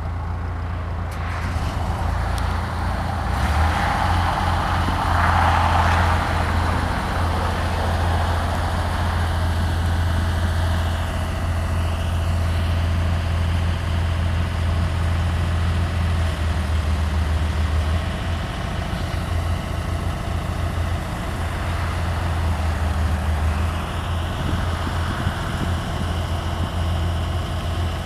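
JLG 400S telescopic boom lift's engine running steadily while the boom is raised, with a constant low hum throughout.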